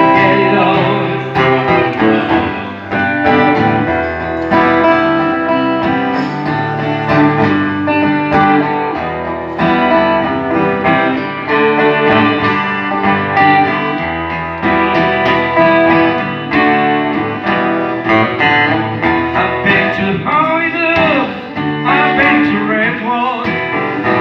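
Two acoustic guitars playing together live, strummed and picked, with a man's voice singing along in places, most clearly near the end.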